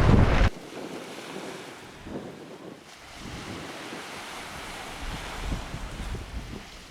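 Wind buffeting the microphone over a steady rushing hiss. A louder stretch cuts off abruptly about half a second in, and low rumbling gusts come back near the end.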